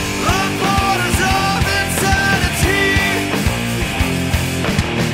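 Rock song with a steady drum beat under full band accompaniment and a melody line of held notes that slide into pitch.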